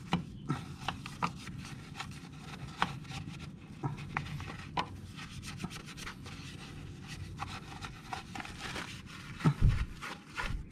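A brush scrubbing the scooter's soapy aluminium CVT housing: a steady wet rubbing and scraping with scattered light knocks, and a few louder ones near the end.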